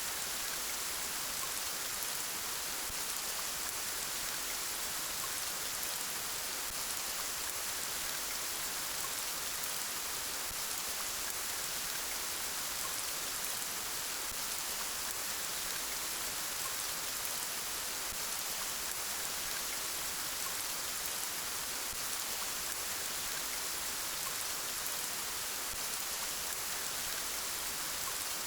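Steady rain falling, an even hiss of drops on a surface that does not change in strength.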